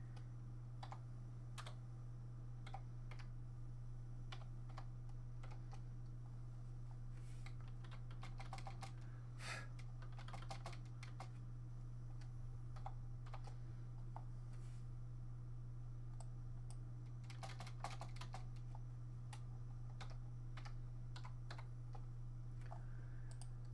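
Typing on a computer keyboard: scattered keystrokes that come in short clusters, over a steady low hum.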